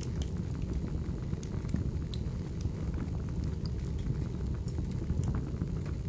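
Fireplace fire burning: a steady low rumble of flames with scattered small crackles and pops.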